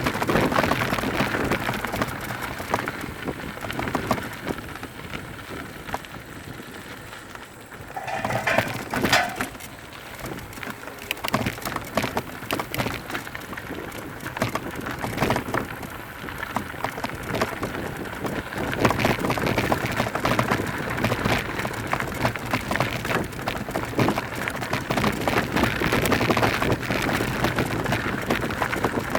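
Mountain bike riding downhill on a dirt trail: tyres crunching over dirt and stones, and the bike rattling with many small knocks.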